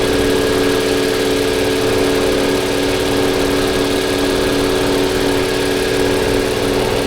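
2021 Toyota Avalon's V6 engine idling steadily with a steady hum, with cylinder 6 misfiring, which the mechanic puts down to a clogged fuel injector.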